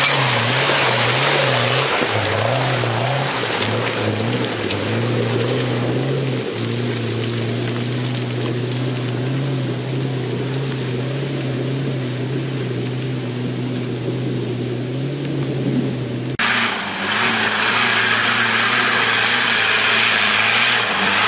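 Jeep Wrangler's engine climbing a loose-rock slope off-road, revs rising and falling for the first few seconds and then held steady as it pulls away. About 16 s in it cuts abruptly to another 4x4's engine, a Toyota, with more hiss from tyres and stones.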